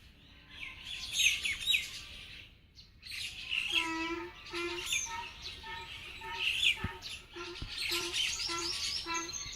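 Birds chirping and calling: short high chirps at first, then from about four seconds in a lower, pitched call repeated about twice a second, with chirps over it.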